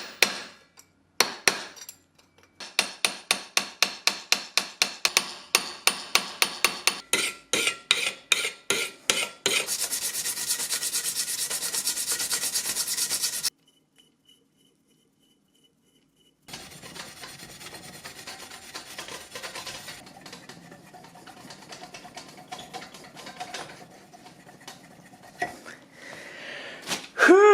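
Small hammer tapping a brass rivet pin in a steady run of strikes, about three or four a second, peening it over. After about nine seconds this gives way to a few seconds of fast, bright rasping on the metal. After a brief gap comes quieter, steady rubbing on the brass.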